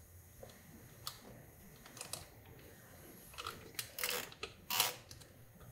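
Nylon cable tie being worked through a radiator guard mount. Scattered faint clicks, then two short ratcheting zips about four and five seconds in as the tie's teeth pass through its head.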